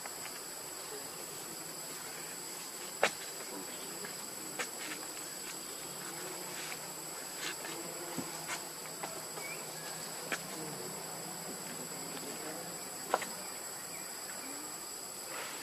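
Steady high-pitched drone of insects, with a few sharp clicks scattered through it.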